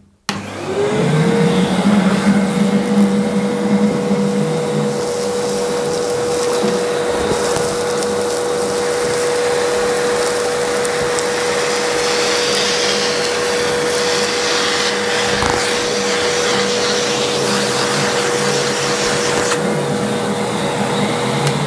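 Vacuum cleaner switched on, its motor spinning up to a steady whine and then running, sucking a pile of sawdust off a workbench through a hose and a cyclone separator into a metal bin. It cuts off right at the end.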